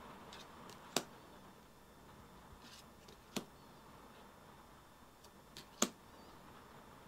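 Glossy tarot cards being flipped one at a time and laid on the face-up pile: three sharp card snaps about two and a half seconds apart, with faint rustling and ticks of card handling between.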